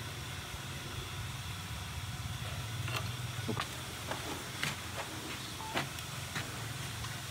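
Several sharp clicks and taps of hand tools on metal engine parts, over a steady low hum.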